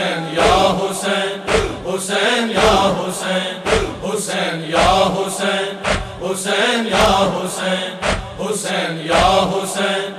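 Rhythmic matam, hands beating on chests at about two strokes a second, under a male chorus chanting in unison.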